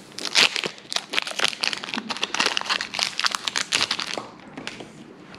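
Foil wrapper of a Pokémon trading-card booster pack crinkling as it is torn open and the cards are pulled out, stopping about four seconds in.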